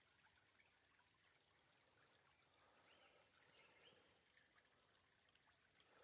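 Near silence: only a faint trickle of creek water.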